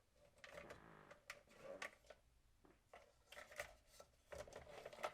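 Faint handling noises: scattered clicks and short rustles, as of material being moved about by hand.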